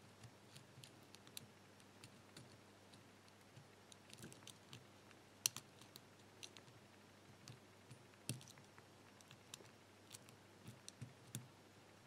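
Faint, irregular clicks of a pick working the pins of a small aluminium pin-tumbler padlock held under light tension, with a sharper click about five and a half seconds in and another near eight seconds.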